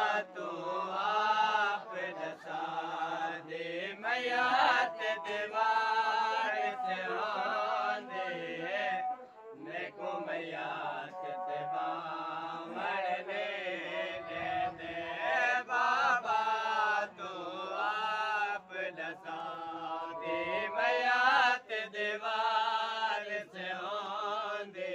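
Men's voices chanting a noha, a Shia mourning lament, in long sung phrases.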